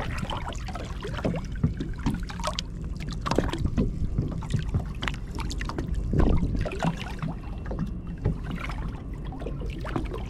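Water splashing and sloshing in irregular bursts as a large mulloway is held by the jaw in the water at the side of a boat and moved back and forth to revive it, over a steady low rumble of wind on the microphone.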